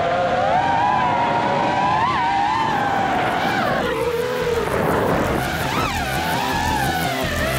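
FPV freestyle quadcopter's brushless motors and propellers whining, the pitch rising and falling with the throttle. About four seconds in the pitch drops and the whine turns to a rushing noise during the dive, then the whine comes back.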